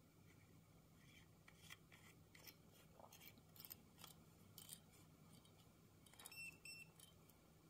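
Faint plastic clicks and scraping as the threaded battery cap is screwed onto the body of a UNI-T UT12M voltage detector. About six seconds in come two short, high electronic beeps.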